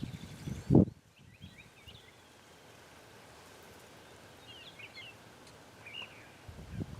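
Small birds chirping faintly against a quiet outdoor background. There are low rumbling thumps in the first second and again near the end.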